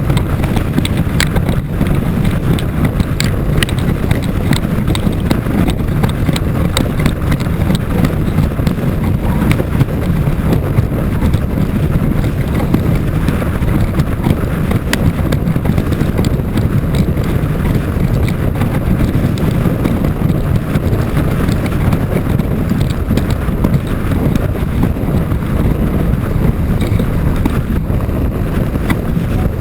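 Strong wind buffeting the microphone, a steady low rumble, with water rushing under a windsurf board sailing and scattered light ticks.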